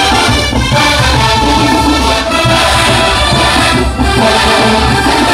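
Marching band playing loudly, with sustained brass chords over drums.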